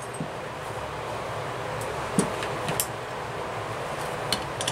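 A few light metal clicks as a carburetor and hand wrenches are handled on a cloth-covered bench, about two seconds in and again near the end, over a steady rushing background noise.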